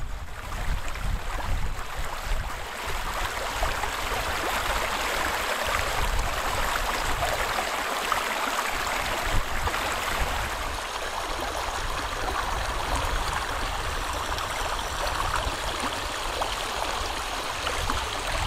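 Shallow moorland river water rushing and splashing over rocks and around a granite boulder, a steady, even rush.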